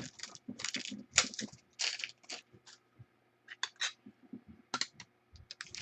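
Trading cards and their plastic holders and wrappers being handled: an irregular run of short clicks and brief crinkles.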